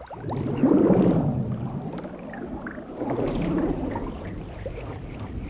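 Film sound of liquid sloshing and gurgling, swelling about a second in and again around three seconds in, as a shark fin cuts through coffee in a cup.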